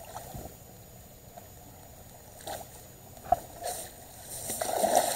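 Water splashing and sloshing as a landing net is worked around a hooked blue catfish at the side of the boat, building up in the last second, with a couple of sharp knocks before it.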